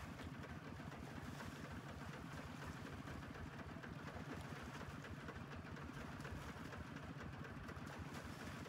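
Single-cylinder diesel engine of a HINOTA two-wheel walking tractor running steadily, the tractor and its sand-laden trailer stuck in a shallow stream.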